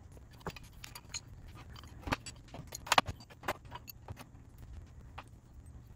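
Metal SU H1 carburetor parts (body, piston, dashpot cover) clinking and clattering as they are set into a wire-mesh cleaner basket and onto the tray: scattered light knocks, the loudest a quick cluster about three seconds in.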